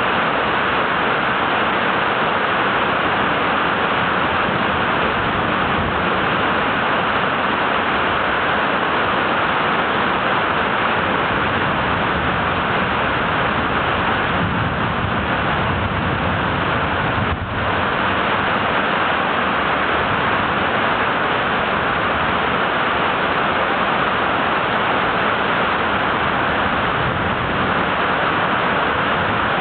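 Heavy rain pouring down, a steady, even rush of water with one brief dip in level a little past halfway.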